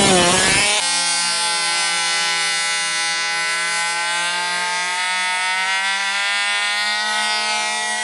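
Fifth-scale RC car's small gas engine at high revs. A swooping rise and fall in pitch gives way, about a second in, to a steady high-pitched drone whose pitch creeps slowly upward.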